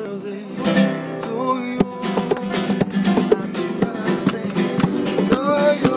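Acoustic guitar strummed in a flamenco-style rhythm, with a man singing over it.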